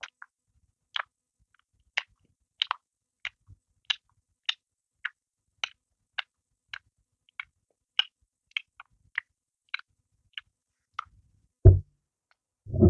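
Close-up mouth sounds of a person chewing a crusty bread roll with the mouth open: short, sharp clicks at a steady pace of about one and a half a second. Near the end there is a single louder low thump.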